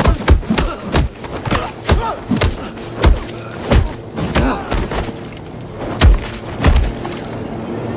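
Foley hits for a film fight: a run of about a dozen heavy thumps and thuds, irregularly spaced, with the two loudest near the end and grunting voices between them.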